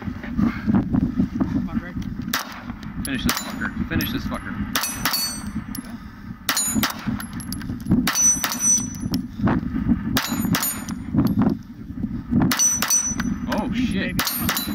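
9mm pistol shots fired in quick strings of two to four, each hit answered by the high ringing of steel dueling-tree paddles and spinner plates.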